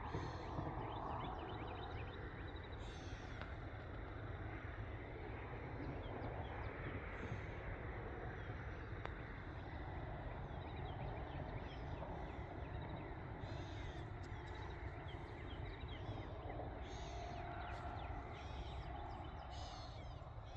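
Outdoor morning bird chorus: many birds chirping and calling, with some louder crow-like calls, over a steady low rumble.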